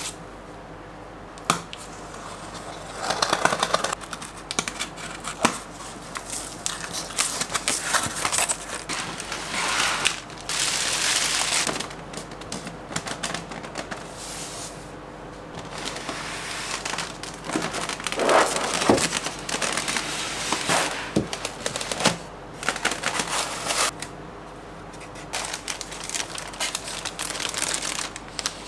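Cardboard packaging handled close up: boxes sliding, tapping and being opened, with irregular rustles and clicks. Near the end, clear plastic wrap crinkles around the figure.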